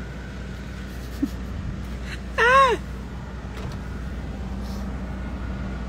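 A toddler's short squeal, its pitch rising then falling, about two and a half seconds in, over the steady low hum of a car idling with the cabin fan running.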